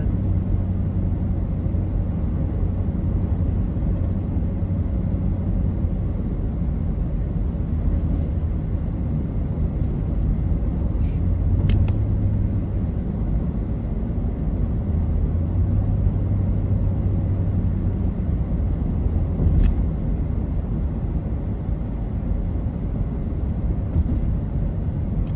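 Car driving along, heard from inside the cabin: a steady low hum of engine and road noise, with a few faint clicks in the middle.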